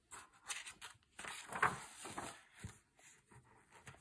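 Pages of a paperback picture book being turned and handled: irregular soft paper rustling and rubbing.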